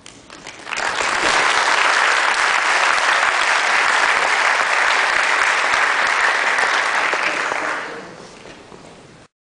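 Audience applauding, building up about a second in and holding steady, then fading near the end before cutting off abruptly.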